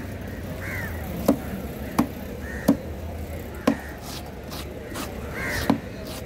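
A heavy curved fish knife chopping through fish pieces onto a thick wooden board: about six separate sharp chops, roughly a second apart. In the second half a plastic scraper rubs across the board.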